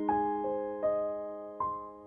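Background music: a gentle piano melody of single notes, each struck and left to ring and fade, about one every half second.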